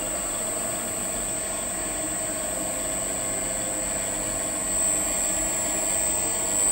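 Electric gear motor of a DUMETA D-BYT-500N welding turntable running, turning the tilted steel table: a steady mechanical hum with a thin, constant high whine above it.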